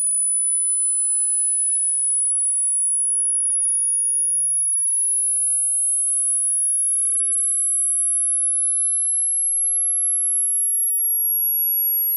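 A single steady pure sine tone, very high-pitched (around 10 kHz), rising very slowly in pitch at a constant loud level.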